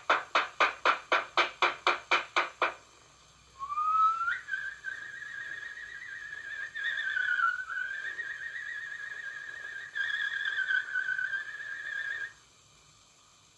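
Quick, evenly spaced strikes, about four a second, stop about two and a half seconds in. After a short pause, a high whistling tone begins. It glides upward, then holds with a slight waver until it cuts off near the end.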